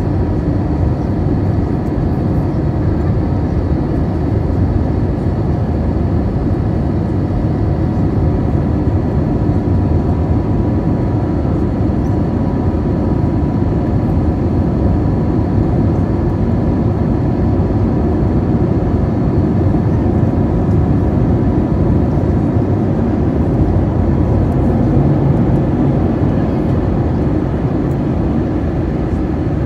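Steady cabin noise of an Airbus A320-family jet airliner climbing out after take-off: a low rumble of engines and rushing air, with a faint steady whine over it.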